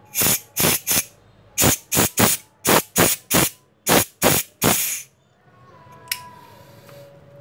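Green gas venting from a Glock 26C airsoft gas magazine as its release valve is pressed again and again: about a dozen short hisses that stop about five seconds in, emptying the magazine after a leak test. A single sharp click follows near the end.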